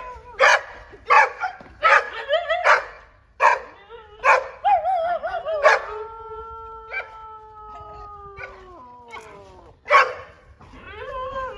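Dog barking several times between short wavering yowls, then one long howl lasting a few seconds that drops in pitch at its end, followed by another bark.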